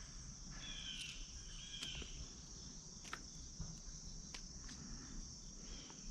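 Faint outdoor insect chorus: a steady, high-pitched trilling of crickets, with a repeating chirping call that comes and goes and a few sharp soft clicks.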